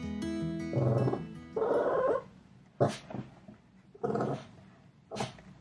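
A household pet making a series of short cries or grumbles. The two longest come in the first two seconds, with shorter ones later. Background acoustic guitar music fades out at the very start.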